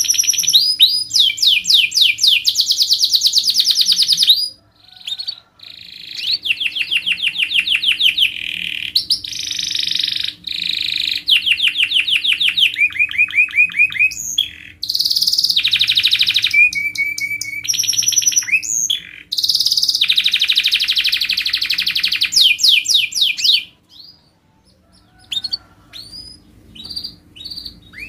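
Domestic canary singing a long song of fast, tight trilled rolls and chirps, with brief pauses about four seconds in and again near the end.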